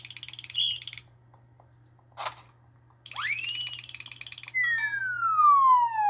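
A string of cartoon sound effects: a fast, even electronic ringing, a brief noisy hit, then a rising glide over the same ringing, and finally a long, loud tone sliding steadily down in pitch.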